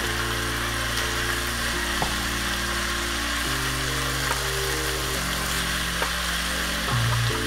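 Bok choy and mushrooms sizzling in a hot pan while being stirred with a spatula, with a few light taps of the spatula on the pan, under background music of slow held chords.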